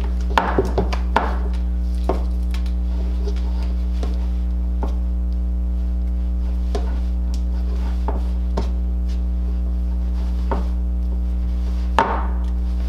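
Scattered light taps and knocks of a doll with hard vinyl limbs being handled on a wooden countertop as its cloth torso is stuffed: a cluster in the first second, then sparser ones, the sharpest near the end. A steady low hum runs under them.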